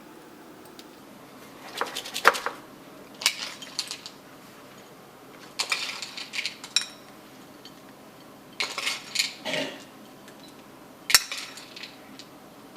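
A spoon clinking and scraping against dishes in five short bursts, a few seconds apart, as batter and chocolate chips are spooned out.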